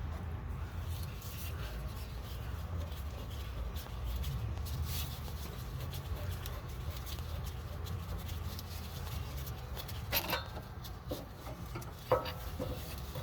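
Tool-and-bolt handling at the lower mount of a rear shock absorber: faint scraping and ticking over a steady low hum, then two sharp metallic clanks about ten and twelve seconds in, the second ringing briefly.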